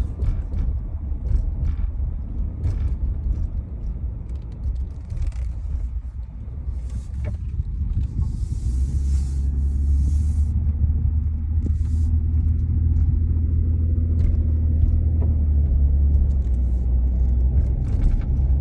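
Low, steady engine and road rumble heard from inside a moving vehicle's cabin, growing stronger from about halfway through, with scattered faint clicks and brief hisses over it.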